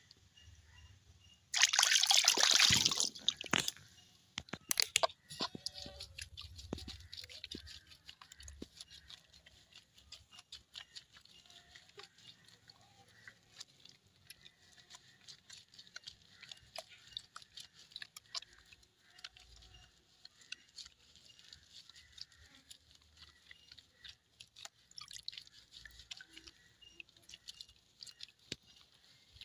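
Water splashing and dripping in a plastic basin as a kitten is washed by hand, with a loud splash about two seconds in, then small drips and splashes.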